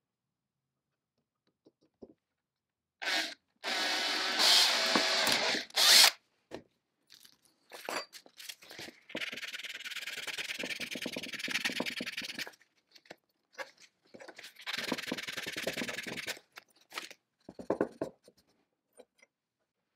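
Power drill boring into a thin brass strip, run in several separate spells of a few seconds each with pauses between.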